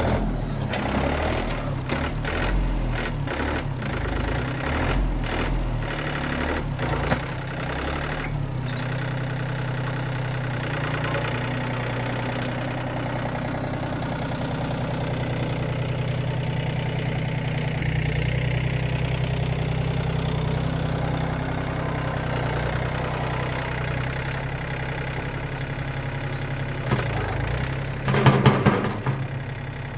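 John Deere 790 compact tractor's three-cylinder diesel engine running steadily while working the front loader. It has a string of clattering knocks in the first several seconds as the bucket works into a wood chip pile, and a louder rough burst near the end.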